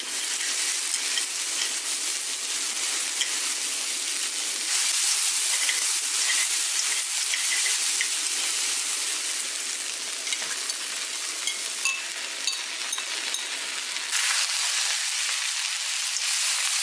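Chow mein noodles, bean sprouts and green onions sizzling in hot oil in a nonstick wok while wooden chopsticks toss them. The sizzle changes abruptly twice, about five and fourteen seconds in.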